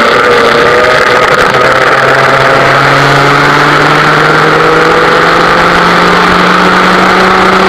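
Vintage West Bend two-stroke kart engine running hard, heard from on board, its pitch climbing slowly and steadily as the kart accelerates out of a bend down the straight.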